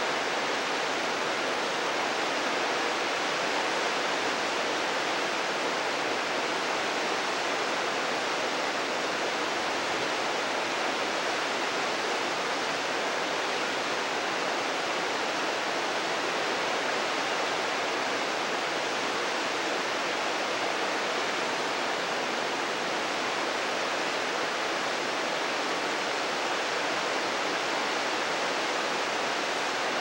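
Mountain stream rushing steadily, an even, unbroken sound of running water.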